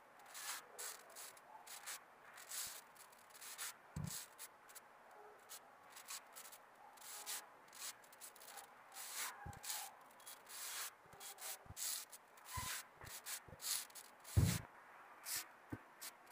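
Hands kneading a kibe dough of bulgur and ground beef with oiled hands on a countertop: repeated irregular soft rubbing and squishing strokes, with a few dull thumps.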